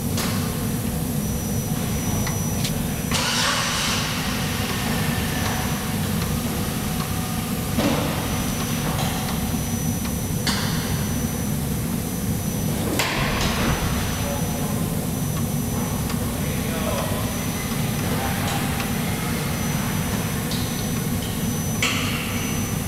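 A steady low rumble throughout, with a few short clanks and scrapes as a car jack is lowered to set the car back onto its tire.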